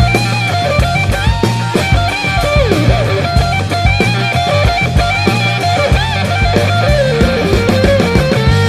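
Rock music with a lead electric guitar and a steady drum beat.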